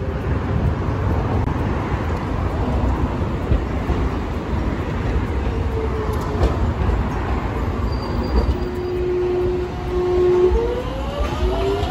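Hiroshima Electric Railway tram, the articulated car 3908, rumbling along street-running track among road traffic. About two thirds of the way in, a steady motor tone sounds; near the end it turns into a rising whine as the tram's traction motors pull away.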